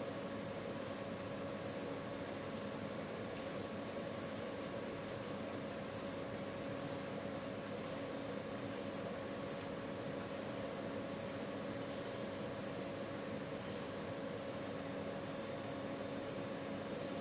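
A shrill, high-pitched chirp repeating evenly about once a second, with a fainter, irregular high note in between, over a low steady hum. The uploader takes this sound for deliberate harassment.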